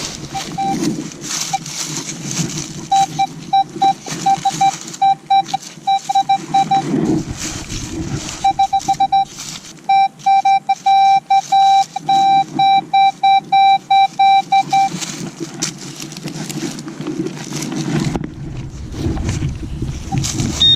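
Metal-detecting gear beeping over a target: a single mid-pitched electronic tone pulsing in quick runs of short beeps, at times running almost together, typical of pinpointing a buried find. Scraping and rustling of handling and digging underneath; the beeping stops about three-quarters of the way through.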